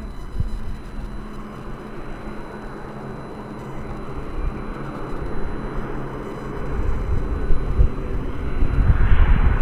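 ATR 42-500 twin turboprop (Pratt & Whitney Canada PW127 engines) arriving, its engine and propeller noise growing steadily louder as it approaches, loudest near the end.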